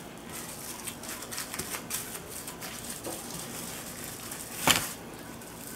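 Plastic wrap crinkling and crackling in a rapid, irregular run of small clicks as hands roll and pinch a log of soft butter tight inside it, with one louder sharp click about three-quarters of the way through.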